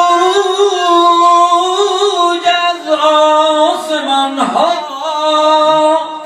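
A man's voice chanting unaccompanied in long held notes that waver in pitch, with a sliding dip about four and a half seconds in. The voice tails off near the end.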